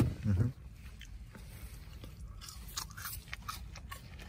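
A person biting into and chewing extra-well-done In-N-Out french fries, with scattered short crisp crunches.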